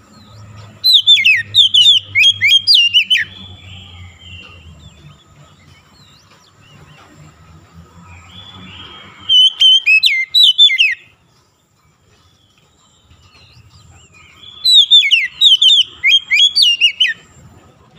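Oriental magpie-robin singing: three loud phrases of rapid, sweeping high notes, each two to three seconds long, separated by pauses of several seconds.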